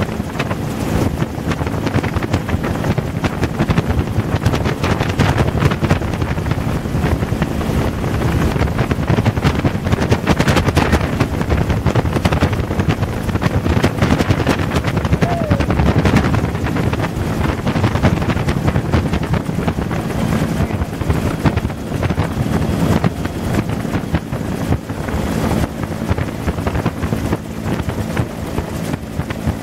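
Bell UH-1 "Huey" helicopter in flight, heard from inside the open-sided cabin: the turbine engine and two-blade main rotor running steadily, with wind buffeting the microphone.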